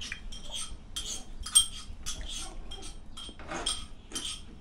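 Knife slicing bacon on a plastic cutting board: a quick, steady run of short cutting strokes, about three a second.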